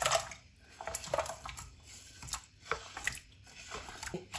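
Raw potato sticks slid off a wooden board into a plastic bowl of water, with a cluster of knocks and splashes at the start, then scattered small splashes and knocks as a hand stirs them in the water.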